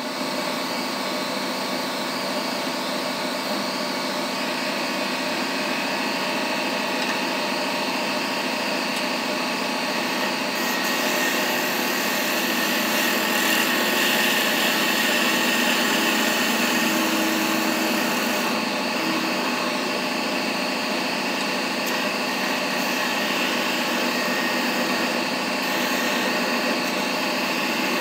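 Wood lathe running while a chisel cuts the spinning wooden handle blank: a steady hiss of the cut over the machine's hum, getting louder through the middle stretch.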